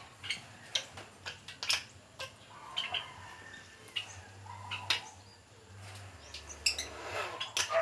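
Pet kuling, a starling-type bird, giving short, scattered chirps and calls, with sharp clicks in between.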